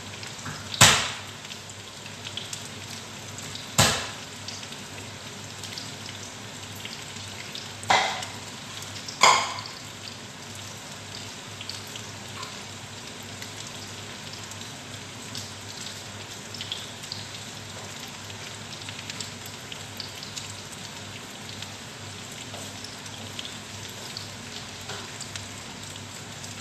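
Eggplant omelettes (tortang talong) frying in oil in a frying pan, a steady sizzle. Four loud, sharp pops stand out in the first ten seconds.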